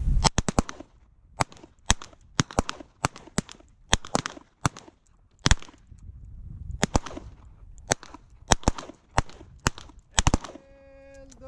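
Revolver shots on a firing range, about twenty sharp cracks at irregular intervals, some in quick pairs, more than one revolver's load, so several shooters on the line are firing at once. Near the end a steady held tone begins.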